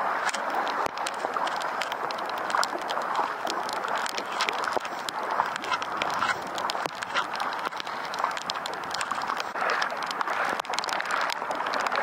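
Floodwater splashing and rain falling on it: a steady hiss full of small crackling clicks.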